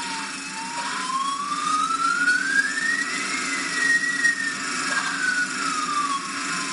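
A single whistle-like tone slides slowly upward for about three seconds and then back down, over a steady hiss with a few faint clicks.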